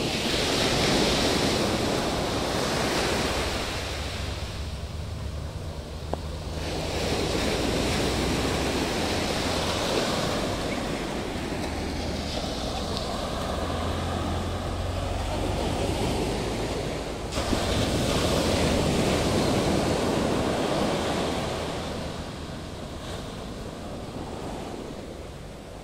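Surf breaking and washing up a sandy beach in repeated swells, each wave rising and then fading, with wind rumbling on the microphone.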